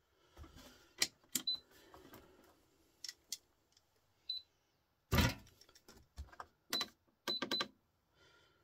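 Small brass scrap pieces and electronic parts clinking and clicking as they are handled and sorted by hand, in a plastic cup and on a sheet-metal bench top. A heavier knock comes about five seconds in.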